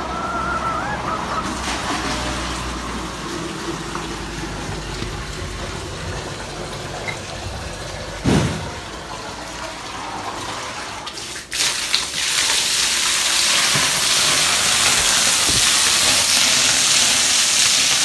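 Water running in a steady rushing hiss, much louder from about two-thirds of the way in, with a single thump a little before the rise.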